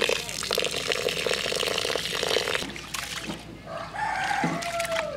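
Water pouring from above onto raw rice in a large aluminium pot for the first two and a half seconds or so, then rice being swished by hand in the water. A rooster crows once near the end, in one long call that falls in pitch.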